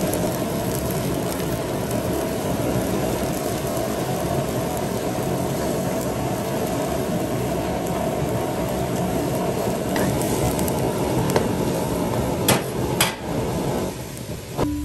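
Food frying in a pan with a steady sizzle, with a few sharp clinks of a utensil near the end.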